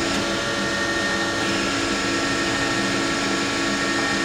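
Powered arm guide of an HE&M V100LM-3 vertical band saw being driven by its electric motor: a steady machine whine with several held tones over an even mechanical noise.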